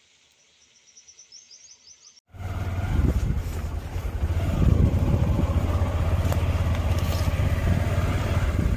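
Faint high chirps over near silence, then, from about two seconds in, a motorcycle engine running steadily while riding, with wind rumbling on the microphone.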